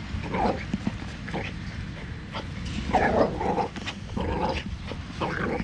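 Cockatoo mimicking a dog's bark, giving several short, rough barks in uneven bouts, with a burst of them a little past the middle.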